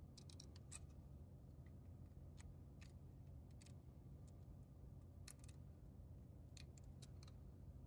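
Near silence with faint, irregular small clicks and ticks as components are pushed into an LED clock kit's circuit board and handled on a stone countertop, over a low steady hum.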